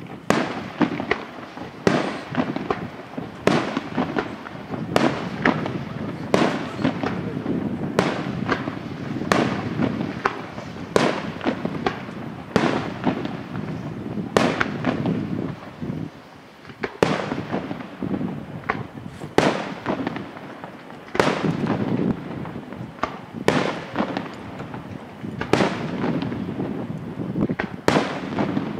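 Aerial firework shells bursting in rapid succession: a sharp bang about every second over a continuous low rumble of echoes. The barrage eases off briefly just past halfway, then picks up again.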